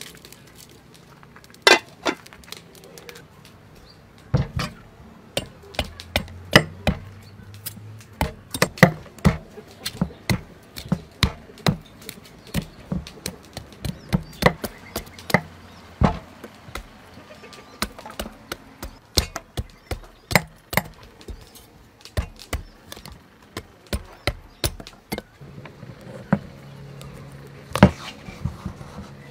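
Knife cutting and peeling a pumpkin on a wooden board: a long run of sharp, uneven knocks, about two a second.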